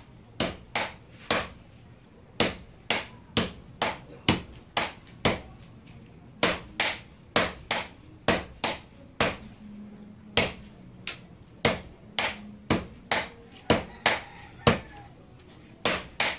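Hand-forging a red-hot steel blade on an anvil: a smith's hammer and a striker's sledgehammer taking turns. The sharp metal-on-metal strikes come two or three a second, with short pauses every few seconds.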